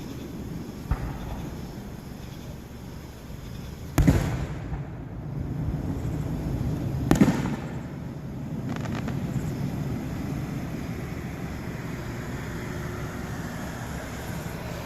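Fireworks going off: three sharp bangs, one about a second in, the loudest at about four seconds and another near seven seconds, each trailing off into a rumble over steady background noise.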